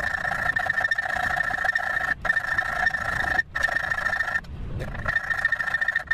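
Hacksaw cutting into an 8 mm stainless steel rod clamped in a vise, notching the barb of a fishing arrow point. The blade scrapes with a steady high squeal, broken by a few brief pauses.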